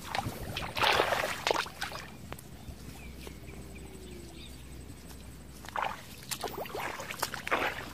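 Bare feet splashing and squelching through wet mud and shallow water: a few quick sloshing steps about a second in, then more near the end.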